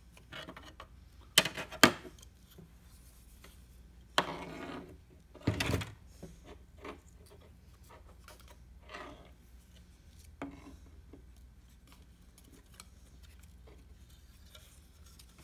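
Small plastic parts and a circuit board from an overhead compass/thermometer console being handled: two sharp clicks a second or two in, then rubbing and scraping of plastic about four to six seconds in, the second scrape the loudest, with a few quieter clicks and rubs afterwards.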